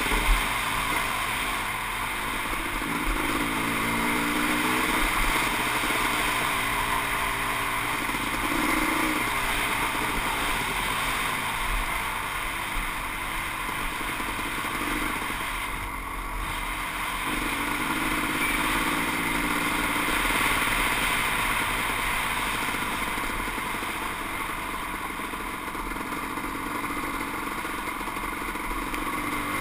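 Kawasaki KX500 two-stroke single-cylinder dirt bike engine running under way, its pitch rising and falling as the throttle opens and closes, over a steady rush of noise. A single sharp knock sounds just after the start.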